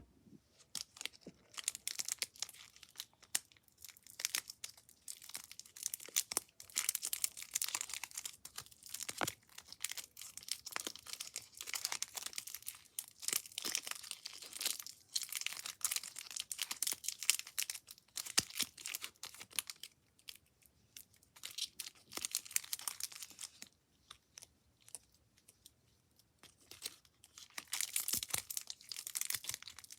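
Crinkling and crunching of a crumpled material, worked in irregular crackly bursts with short quiet pauses, one of them near the end.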